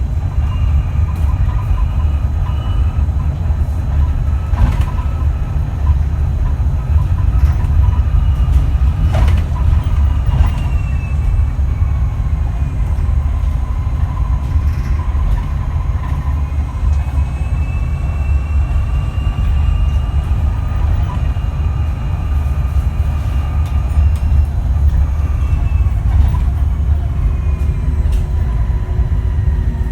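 Switch Metrodecker EV electric double-decker bus on the move: the whine of its ZF AxTrax electric drive motors rises and falls slowly with speed over a steady low road rumble. There are a few short knocks and rattles.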